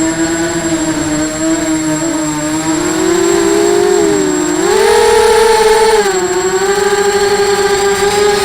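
A 250-size FPV racing quadcopter's motors whining, the pitch wavering with the throttle. The pitch jumps higher about five seconds in and drops back about a second later.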